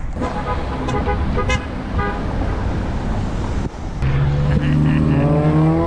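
Road traffic passing on a busy multi-lane street. About four seconds in, a vehicle horn starts a long blast that is held for about two seconds.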